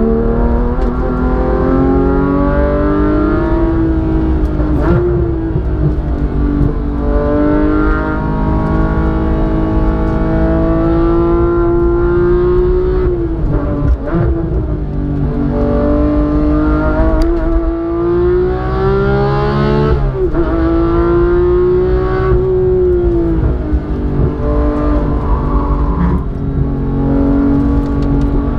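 Porsche 911 GT3's naturally aspirated flat-six engine, heard from inside the cabin and driven hard at racing pace. The pitch climbs under acceleration, then drops sharply at upshifts and under braking for corners, several times over.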